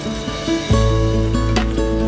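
Background music with held notes; a deep bass comes in under a second in and the music gets louder.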